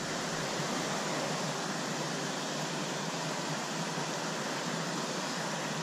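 Steady rush of flowing stream water running over rocks, an even hiss with no breaks.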